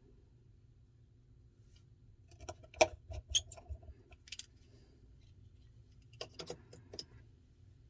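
Sharp clicks and light clinking taps of small tools and parts being handled during a phone repair, in two brief clusters about two and a half and six seconds in.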